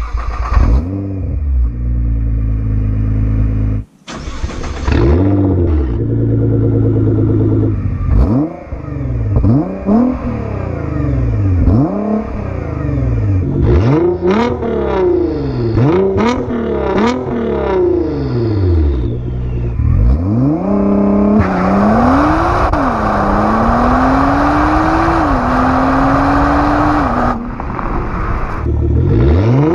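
A 2014 Nissan GT-R's twin-turbo V6 accelerating hard, heard at the tailpipes. The revs climb and fall repeatedly with each upshift. Later a steady, slowly rising drone in a high gear is joined by wind and road noise at speed. The sound cuts between the stock exhaust and the catless, straight-piped Armytrix exhaust.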